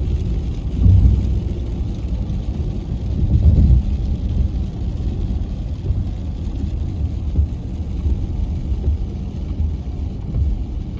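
Car cabin road noise: a steady low rumble of engine and tyres on a wet road, swelling louder about a second in and again about three and a half seconds in.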